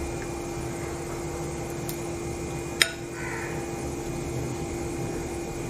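Steady mechanical room hum with a constant low tone, broken by one sharp click a little before the middle.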